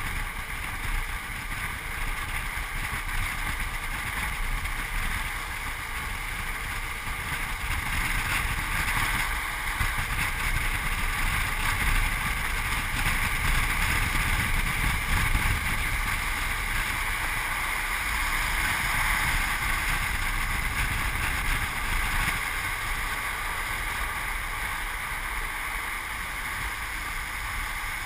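Steady rush of wind over a pole-mounted camera's microphone, mixed with longboard wheels rolling on asphalt during a fast downhill run, a little louder in the middle.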